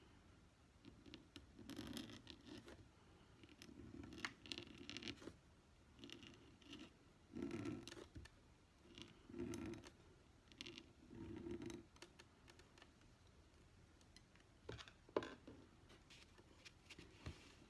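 Faint scratching of a Brause 511 pointed steel nib on envelope paper: a run of short strokes, each a second or less, as numerals are written in ink. Near the end there is a single sharp click.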